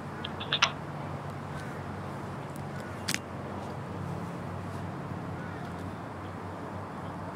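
Steady outdoor background noise with a low hum, like distant traffic. A few sharp clicks come near the start and one about three seconds in, with faint short chirps now and then.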